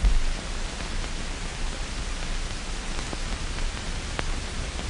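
Steady hiss with a low hum and two or three faint clicks: the background noise of an old film soundtrack.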